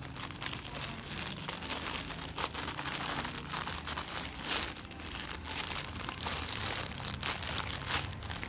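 Scissors cutting through a plastic courier mailer bag while hands pull it open, the plastic crinkling and crackling in irregular bursts.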